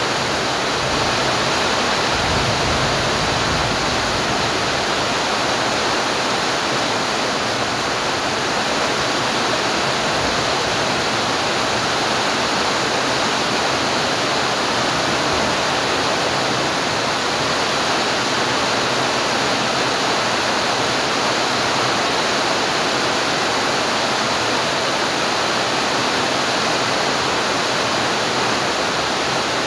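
Heavy, steady rain: a dense, even hiss with no separate drops, thunder or let-up.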